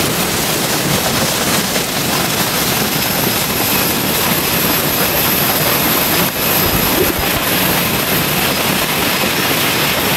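Waterfall water rushing and splashing, a loud, steady, even rush of noise.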